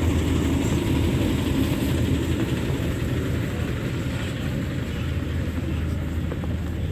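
Heavy diesel engines of racing trucks running on the circuit: a steady, loud low rumble that eases off slightly in the second half.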